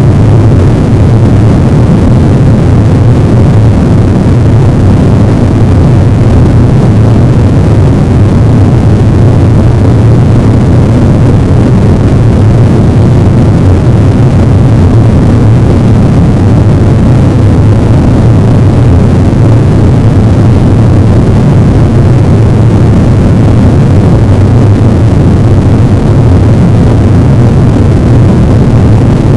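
Harsh noise wall: a loud, dense, unchanging wall of low rumbling noise with no rhythm or melody.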